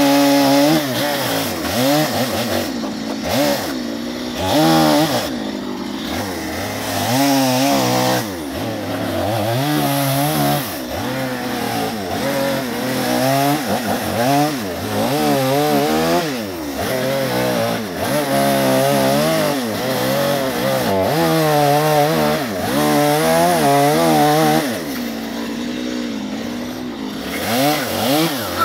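Stihl chainsaw cutting into a western red cedar log, the engine revving up and down again and again as it bites into the wood and drops back between cuts.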